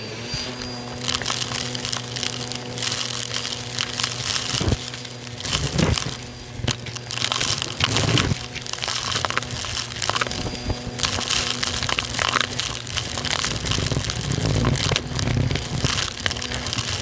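Bissell vacuum's attachment sucking small debris and grit out of a shag rug: dense, irregular crackling and rattling as the bits are pulled up through the tool and hose, with a few louder cracks, over the steady hum of the vacuum motor.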